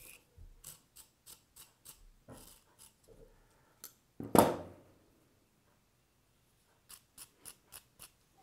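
Hand wire brush scrubbing a small steel scissor part in quick short strokes, about three a second. About four seconds in there is one loud clatter on the bench, the loudest sound here, then a pause before the scrubbing starts again near the end.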